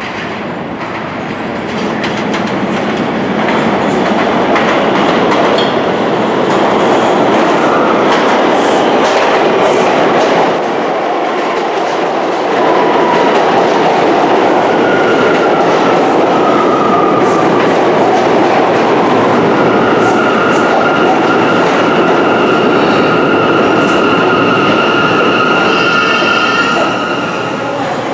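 R179 subway train running past, a loud steady rumble that builds over the first few seconds, with wheels clicking over rail joints. From about halfway in, high steady wheel squeal rides over it. The sound drops off suddenly at the end.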